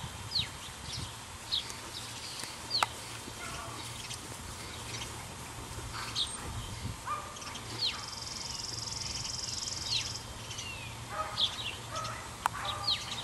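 Outdoor birds calling: repeated short chirps that drop sharply in pitch, with a buzzy trill a few seconds in, over a faint steady low hum.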